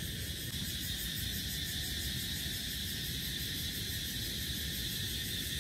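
Steady dawn chorus of forest insects: a continuous high buzz with a fast, evenly repeating pulsing above it, over a low rumble.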